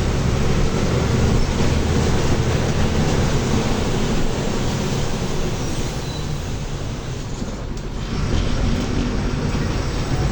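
Mercedes-Benz OF-1724L bus's diesel engine running under load as the bus drives, with a steady low drone; it eases off about six seconds in and picks up again about two seconds later.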